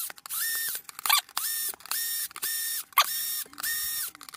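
Cordless drill-driver driving small screws into a 3D-printed plastic clock plate in short trigger pulls. There are about five brief bursts of motor whine, each ramping up and back down, with a couple of sharp clicks between them.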